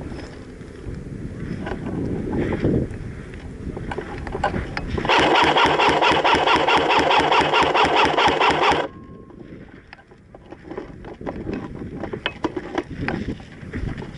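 Airsoft gun firing one sustained full-auto burst of about four seconds, a rapid, evenly repeating mechanical rattle that cuts off suddenly. Wind noise on the microphone and rustling before and after it.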